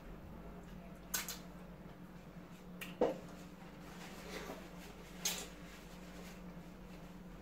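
Quiet eating by hand: faint chewing and mouth sounds with three short sharp smacks or clicks, over a low steady hum.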